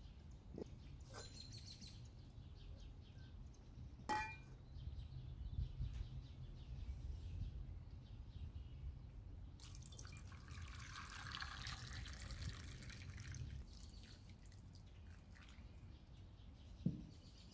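Water poured into an enamel pot of raw potatoes and eggs, a splashing pour of about four seconds starting near the middle. Earlier a single sharp knock, and near the end a dull thud.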